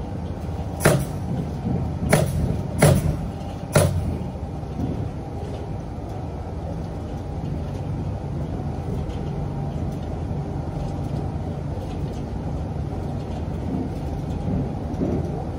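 Four sharp bangs in the first four seconds, then a steady low rumble of building-site background noise.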